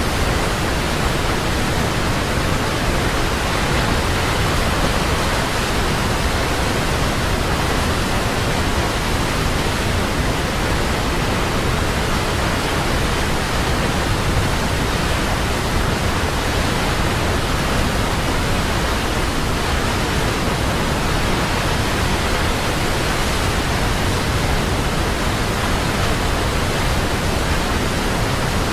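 Large waterfall: a steady, even rush of falling water.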